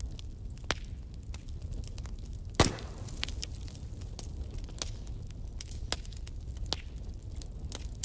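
Fire burning and crackling: a steady low rumble with scattered sharp pops, and one loud crack about two and a half seconds in.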